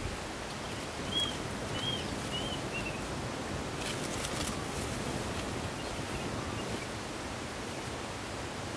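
Steady outdoor background hiss, with four short high chirps in a falling series about a second in, and a brief rustle near the middle.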